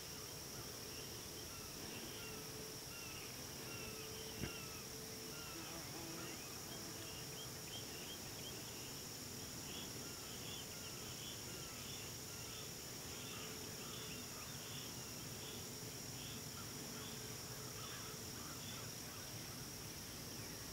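Summer field ambience: a steady high-pitched insect drone, with short bird chirps repeating throughout. One sharp click about four seconds in.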